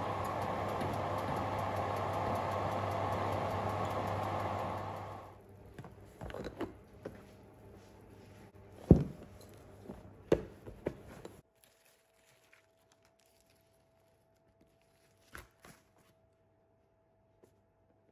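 A fan runs steadily with a low hum, then stops about five seconds in; after that, metal cake pans knock and scrape as they are handled and set down, with two sharp knocks the loudest.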